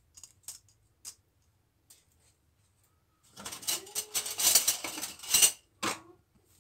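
A few light clicks in the first second as fingers work through steamed vermicelli in a metal couscoussier. Then, from about three seconds in, a couple of seconds of loud, crackling handling noise full of sharp clicks, followed by one more short burst.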